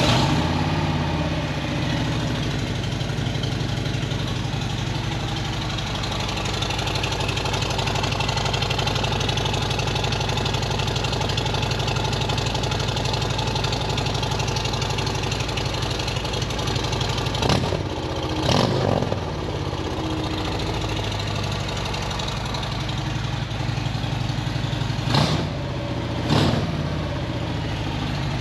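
2020 Harley-Davidson Ultra Limited's Milwaukee-Eight V-twin, with a Fuel Moto Jackpot 2-1-2 head pipe and 4.5-inch Rinehart slip-on mufflers, idling loud and steady at a raised cold-start idle just after starting. Past the middle it gets two pairs of short throttle blips.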